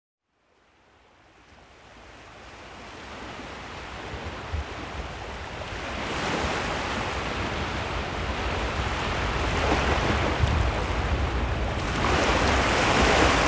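Ocean waves washing in, fading up from silence and growing steadily louder, with swells of surf about six and twelve seconds in.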